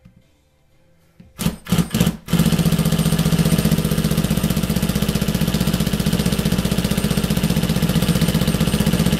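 Impact gun with a driver bit working on a seized slotted screw in a lathe apron: a few short bursts, then continuous rapid hammering from about two seconds in, as the impacting tries to break the old screw loose.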